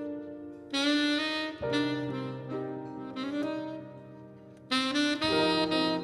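Saxophone playing a slow melody of long held notes, with a new phrase about a second in and another near the end, over a jazz band's piano and double bass.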